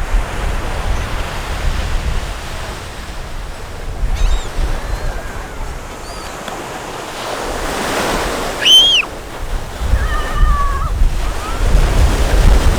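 Wind buffeting the microphone over a steady rush of surf. A short, high-pitched arching call sounds about nine seconds in, and a wavering call follows a second later.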